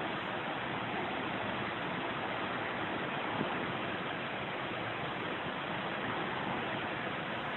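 Steady, even rushing noise of the seaside, with no separate wave breaks standing out, and a faint click about three and a half seconds in.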